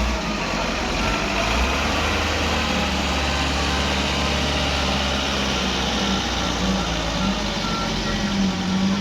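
Heavy vehicle's diesel engine running loudly as it climbs an uphill bend, a steady low rumble. Short faint high beeps come at uneven intervals over it.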